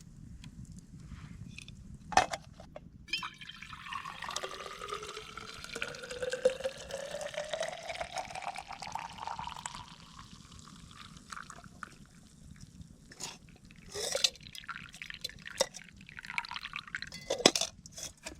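Liquid poured into a container for several seconds, its pitch rising steadily as it fills. A few sharp knocks and clatters come before and after the pour.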